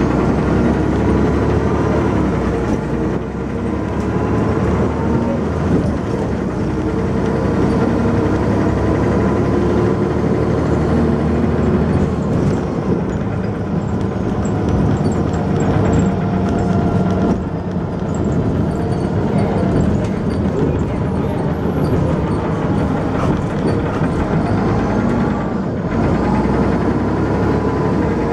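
Dennis Arrow double-decker bus heard from on board while under way: the engine runs loudly, its pitch rising and falling as it pulls away and changes gear, with brief drops in level about two-thirds of the way through and near the end.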